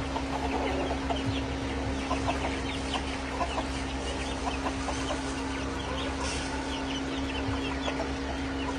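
Several backyard chickens clucking in short, scattered calls over a steady low hum.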